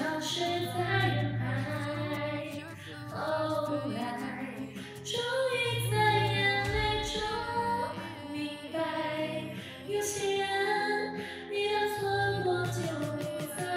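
A woman singing a Chinese pop song into a karaoke microphone, amplified through a Newsmy portable karaoke speaker over a backing track with sustained bass notes.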